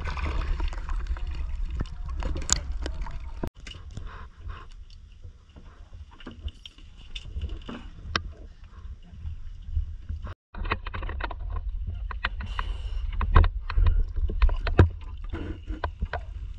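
Small fishing boat at sea: a steady low rumble of wind and water with scattered knocks and splashes. The sound cuts out abruptly twice.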